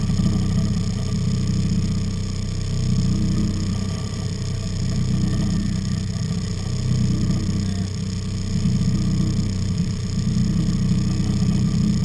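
Fishing boat's engine running steadily under way, a low, even drone that swells gently every couple of seconds.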